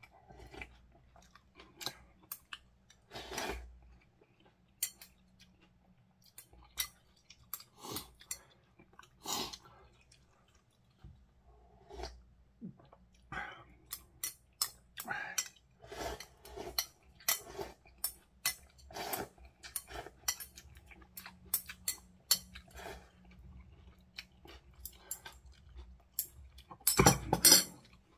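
Close-up eating sounds from a bowl of ramyeon with kimchi: sipping broth, slurping noodles, chewing and mouth smacks, with a utensil clinking now and then against the ceramic bowl. A louder burst of noise comes about a second before the end.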